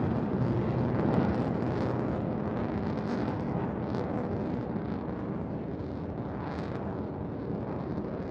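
Jet fighter engines with a steady roar that slowly fades.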